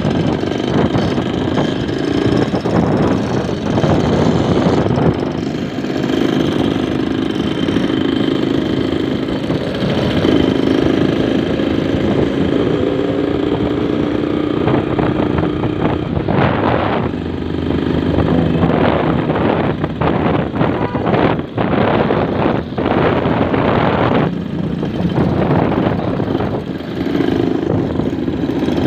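Yamaha RX-King two-stroke single-cylinder motorcycle engine running as the bike is ridden, its note rising and falling with the throttle. The exhaust has the raspy 'ngorok' note.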